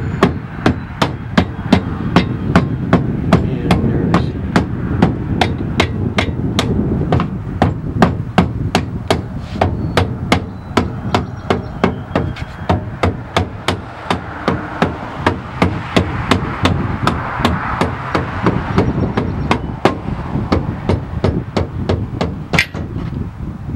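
Hammer blows knocking a part loose on a truck frame, a steady run of about two to three strikes a second that thins out in the second half, with one sharp blow near the end.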